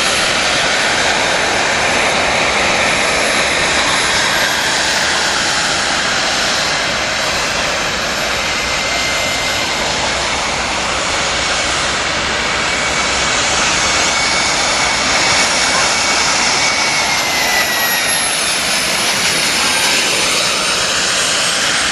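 Wren model jet turbine in a radio-controlled Bluebird hydroplane, running steadily at speed. It makes a loud, even jet rush with a thin high whistle over it, and the whistle slides down in pitch late on.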